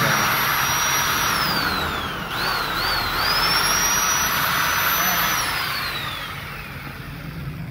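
KPT 13 mm electric drill's motor on a test run with freshly fitted bearings, a high whine. Its speed sags around two seconds in, blips up twice, picks back up, then winds down near the end.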